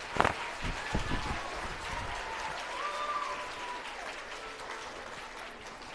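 Theatre audience applauding at the end of a song number, starting sharply and holding steady.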